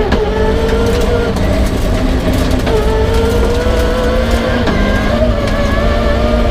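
Peugeot 306 rally car engine pulling hard under acceleration, its pitch climbing steadily and dropping back at upshifts, over a constant rumble of road and tyre noise.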